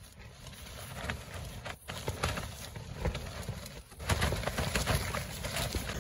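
Gusty wind buffeting the microphone, a heavy low rumble with irregular ticks and knocks, blowing hardest from about four seconds in.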